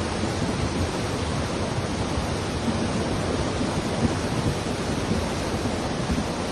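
Fast-flowing floodwater rushing with a steady, unbroken noise.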